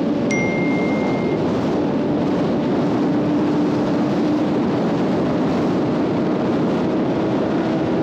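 Motorcycle engine running at a steady cruising speed, heard through heavy wind rush on the onboard camera's microphone. A short, high, thin tone sounds briefly near the start.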